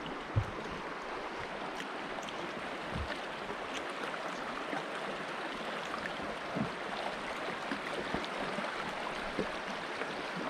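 River water rushing through small rapids around a raft, a steady hiss, with a few short low knocks, the sharpest about half a second in.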